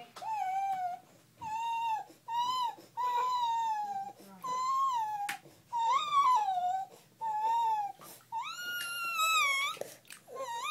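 Toddler making a run of about nine high-pitched squealing calls, each under a second or so, with short pauses between them; many drop in pitch at the end, and the longest comes near the end.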